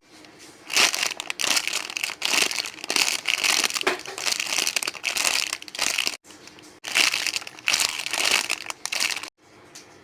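Plastic wrapping crinkling as it is handled, in irregular bursts, with abrupt breaks about six seconds in and near the end.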